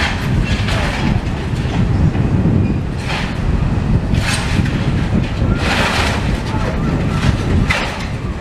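Demolition machinery working through rubble: a steady low rumble with irregular crashing and scraping of debris every second or two.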